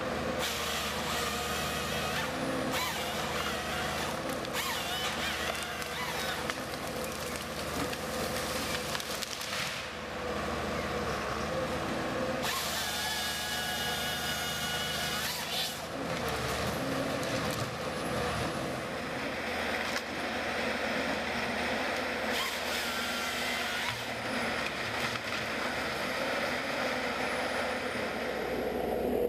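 Machinery running, its sound changing abruptly every few seconds.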